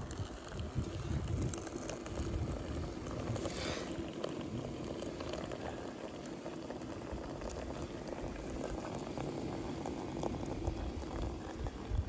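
Water boiling in a wood-fired stainless-steel samovar, with a thin stream of hot water running steadily from its tap into a metal teapot.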